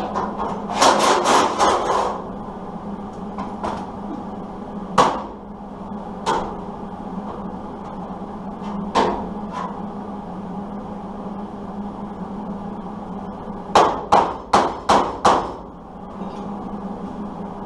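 Hammer blows on steel sheet metal: a quick run of taps about a second in, a few single strikes, then five blows in quick succession near the end, over a steady low hum.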